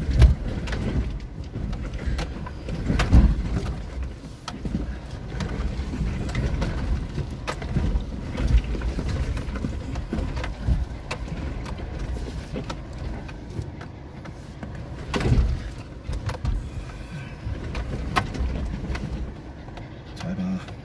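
Suzuki Jimny crawling down a rocky slope, heard from inside the cabin: a low engine and drivetrain rumble with frequent knocks and thumps as the tyres drop over rocks. The heaviest thumps come right at the start and about 3, 8 and 15 seconds in.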